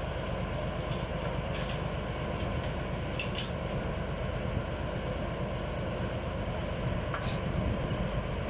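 8060 paddy combine harvester running steadily, its engine giving an even, continuous drone, with a few faint clicks over it.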